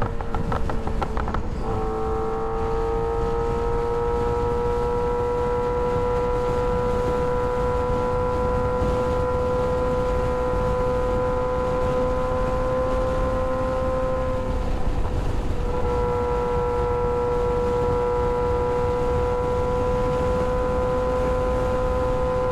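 Kawasaki ZX-6R 636's inline-four engine running at a steady, high-pitched cruise, its pitch creeping slowly up. The tone breaks up briefly just after the start and again about two-thirds through, then settles back to the same pitch. Wind rumble sits underneath.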